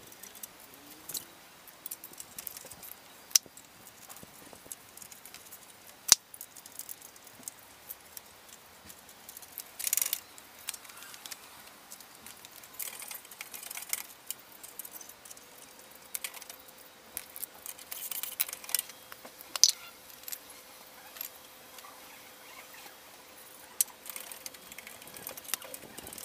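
Scattered metallic clicks, clinks and small rattles of hand tools and a motorcycle exhaust being worked on: the muffler support stay of a Harley-Davidson Sportster 883 being unbolted and the muffler pulled free. A few sharp knocks stand out, with a brief cluster of rattling about ten seconds in.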